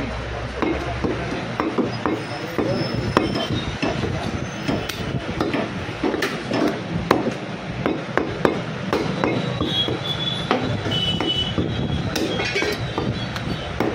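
Butcher's cleaver chopping goat meat and bone on a wooden block, a run of sharp irregular chops about two a second.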